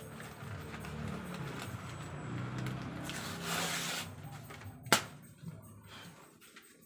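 A low, steady drone like a passing motor vehicle's engine runs for about the first five seconds, with rustling of stiff cement-bag paper over it. A single sharp knock comes about five seconds in and is the loudest sound.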